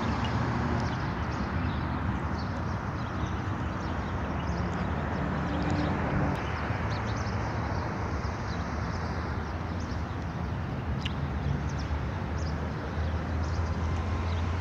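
Outdoor ambience on a handheld phone while walking: a steady low rumble with footsteps and a few faint high ticks.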